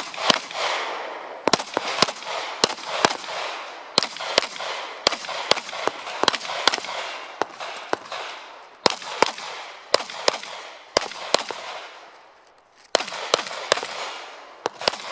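Heckler & Koch P30L 9 mm pistol firing rapid pairs of shots during an IPSC stage, about thirty in all, each with a short echo off the range berms. There is a brief break a little before the last few pairs.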